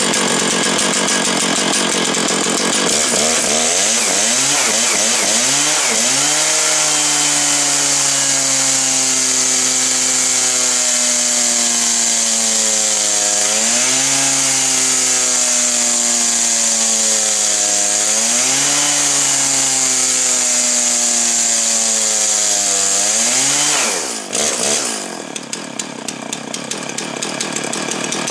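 Stihl MS 660 two-stroke chainsaw cutting wood at full throttle: the engine's pitch sags slowly under load, picks back up twice, then drops away about four seconds before the end as the cut ends.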